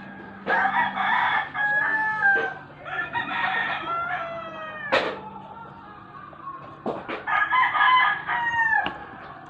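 Rooster crowing three times, each crow about two seconds long and trailing off in a falling tone. A sharp click falls about halfway through.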